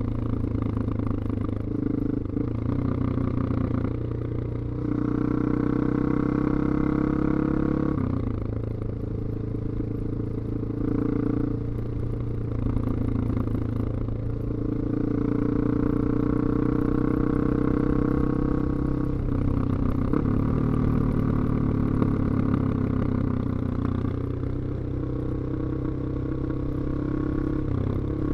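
2002 BMW F 650 GS single-cylinder engine running through a Scorpion slip-on exhaust while riding at road speed. Its pitch climbs slowly under throttle in several long stretches, dropping back sharply between them.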